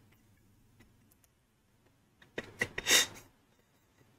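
Near silence, then about two and a half seconds in a few soft clicks, likely a computer mouse, and a short breathy laugh from the man.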